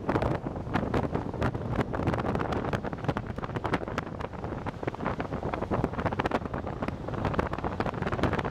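Wind buffeting the microphone from a moving car, with the car's running and road noise underneath and frequent short crackles.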